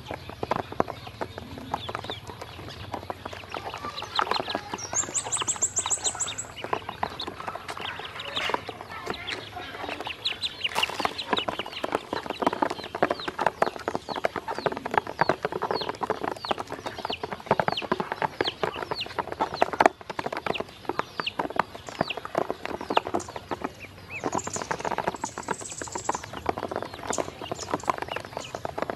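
A group of ducklings peeping and pecking in a plastic basin, their calls mixed with a dense patter of small taps from bills and feet on the plastic.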